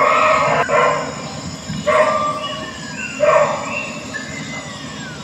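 Recorded bird calls played through an exhibit's speaker: a few harsh calls about a second apart, each trailing off into a thin falling whistle.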